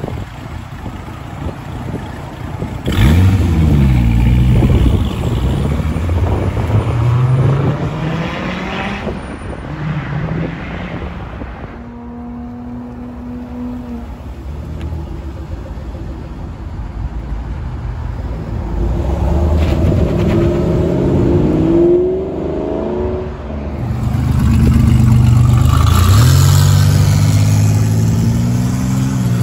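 Several high-performance cars accelerating away one after another, their engines revving up through the gears. It starts with a loud pull-away about three seconds in, most likely the Dodge Viper's V10, and ends with another loud acceleration in the last few seconds.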